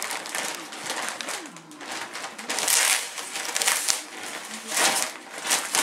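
Staffordshire Bull Terrier puppy rummaging in and tearing at Christmas wrapping paper: crackly rustling in uneven bursts, the loudest about three seconds in and again near the end.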